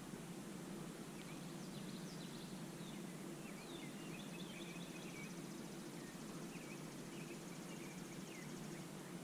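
Small birds chirping and twittering in short, scattered calls, with a high, fast buzzing trill for a few seconds in the middle, over a steady low hum.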